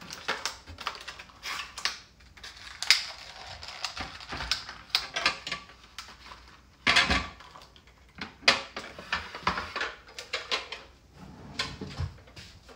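Eggs and hard clear plastic being handled: eggs lifted out of a plastic egg storage case and set back into their plastic egg pack, giving irregular light clicks and taps, with a louder knock about seven seconds in.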